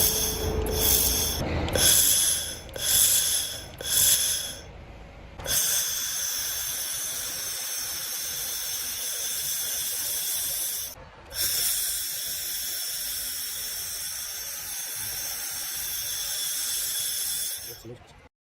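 Handheld fiber laser welding machine at work: about five short hissing bursts a second or so apart, then a steady hiss that breaks off briefly about eleven seconds in and resumes until just before the end.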